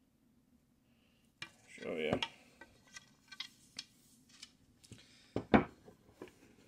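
Vinyl-wrapped recurve bow limbs being handled and laid on a tabletop: scattered clicks and knocks, with a short scrape about two seconds in and the loudest knock about five and a half seconds in.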